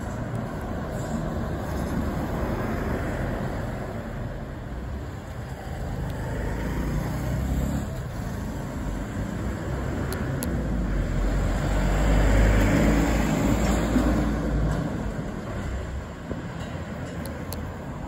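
Low rumbling noise of passing traffic, swelling to its loudest about two-thirds of the way through and then easing off.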